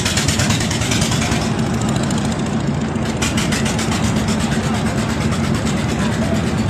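Small river boat's engine running steadily, a low even hum with a fast, regular clatter.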